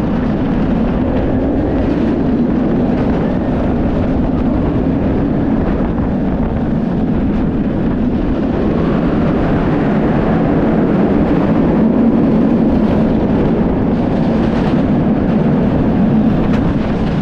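Bolliger & Mabillard sit-down steel roller coaster train running its course at speed: a loud, steady rush of wind over the microphone mixed with the train's low roar on the track.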